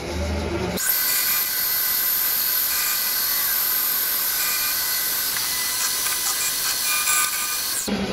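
Vertical mill's long-series end mill taking a very light skim cut along the locomotive frame's horn slot: a steady high-pitched hiss with faint tones running through it, starting about a second in and stopping just before the end.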